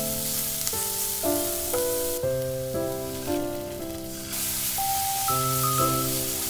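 Diced zucchini and carrot sizzling as they are stir-fried in an oiled pan, with the spatula stirring them. The sizzle thins out about two seconds in and comes back about four seconds in, over background music with a melody.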